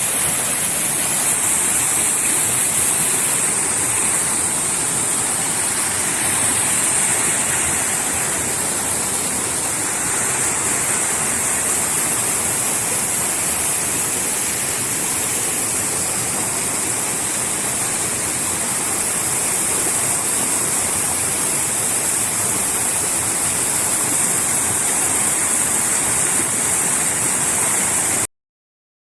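Water rushing steadily over an irrigation dam, a loud, even roar with a strong high hiss. It cuts off suddenly near the end.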